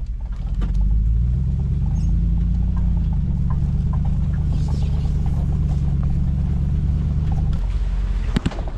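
Off-road vehicle engine running on a trail, its pitch climbing about a second in and holding steady, then dropping near the end, with a couple of sharp knocks just after.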